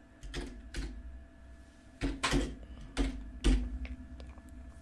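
Computer keyboard keys being pressed: about six separate keystrokes with dull thuds, the loudest ones between two and three and a half seconds in.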